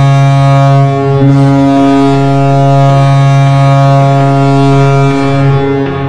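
Toronto Maple Leafs goal horn sounding one long, steady, deep blast, loud throughout, that begins to fade near the end.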